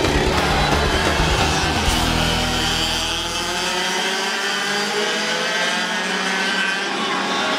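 Several racing kart engines running at speed, their pitch rising and falling as the karts accelerate and lift off. Background music with a beat fades out over the first few seconds.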